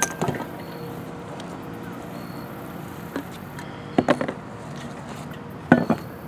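Things from a tote bag dropped and set down on a wooden picnic table: a clatter at the start, a few knocks about four seconds in, and a sharp knock near the end as a water bottle is put down.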